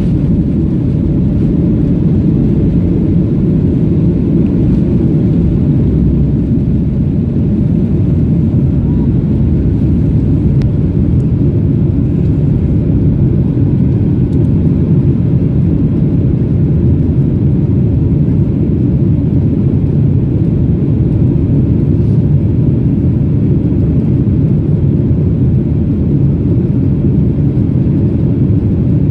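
Boeing 737-800's CFM56-7B jet engines at takeoff thrust, heard inside the cabin over the wing: a loud, steady, deep rumble through the end of the takeoff roll, liftoff and initial climb.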